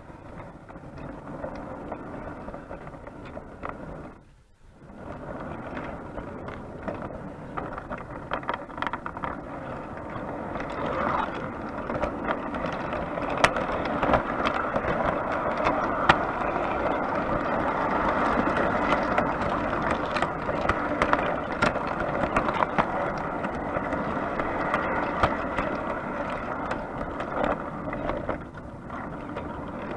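O gauge three-rail model train running along the track, heard from inside one of its carriages: a steady rumble and rattle of wheels with many sharp clicks over the rails. It drops away briefly about four seconds in and grows louder from about ten seconds on.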